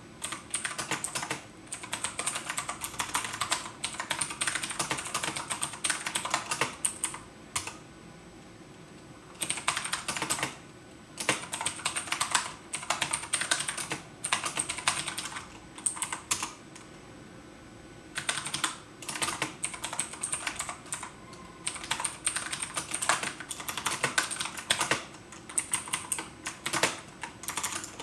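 Typing on a computer keyboard: runs of rapid keystrokes broken by pauses of a second or two.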